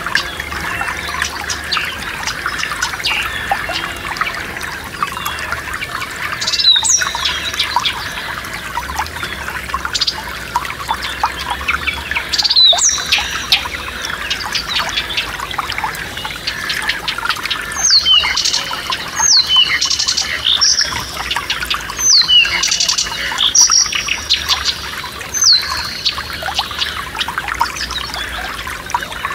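Forest stream trickling steadily, with a songbird calling over it: sharp whistled notes that sweep quickly downward, once about seven seconds in, again near thirteen seconds, then in a quick run of repeated calls through the second half.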